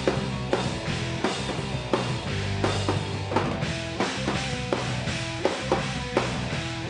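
Live pop-punk band playing an instrumental passage between vocal lines: a steady drum-kit beat under bass and guitar.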